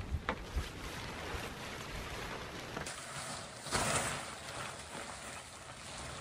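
Large fabric tarp rustling and swishing as it is lifted down and gathered up, with a louder swish about four seconds in.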